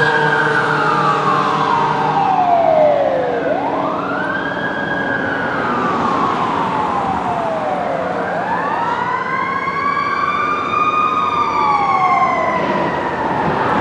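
2005 Pierce Quantum fire engine's siren wailing as it responds: three rise-and-fall cycles, each climbing quickly and then sliding down slowly, with a second, higher siren tone overlapping in the last cycle. A steady engine rumble runs underneath.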